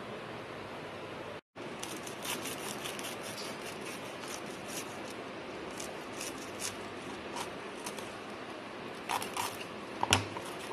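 A knife cutting through a crisp grilled brown-bread sandwich on a plastic cutting board: scattered crunchy crackles and scrapes, loudest near the end with a knock, over a steady hiss.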